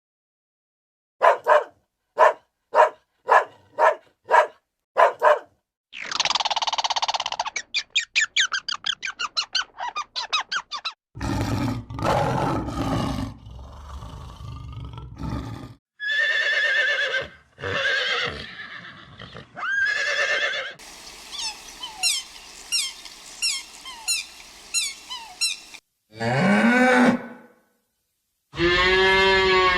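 Farm-animal calls in short clips cut back to back: a run of seven short calls, then several longer calls, a stretch of many quick high chirps, and a low call that rises and falls near the end.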